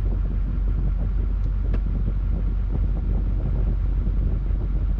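A vehicle engine idling steadily, a constant low hum with a rough rumble above it.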